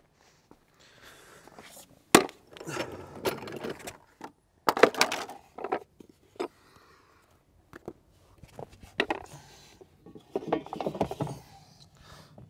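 A wooden dolly on caster wheels being set down on a concrete floor and shuffled about, with a metal jacking rail loaded onto it: a sharp knock about two seconds in, then bouts of knocking, rattling and rolling.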